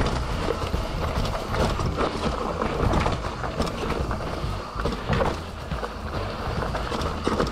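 Mountain bike rattling and knocking over a rough trail: irregular clatter of the bike frame and parts, over a steady low rumble of wind and tyre noise.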